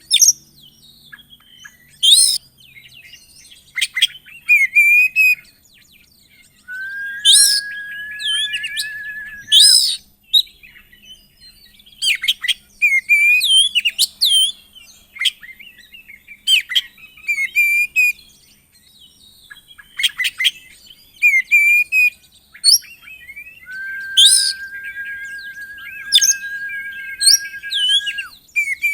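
Oriental magpie-robin (kacer) singing hard: fast, varied whistled phrases and sharp chirps, with a long flat whistle held for about three seconds twice. A full, excited song meant to provoke other magpie-robins into singing.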